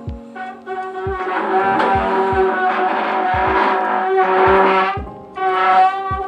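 Music with a brass-like melody of held notes over a low drum beat that thumps about once a second.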